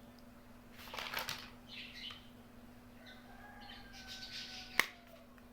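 Miniature plastic toy kitchen pieces and packaging being handled: a few faint soft rustles and scrapes, then one sharp click near the end.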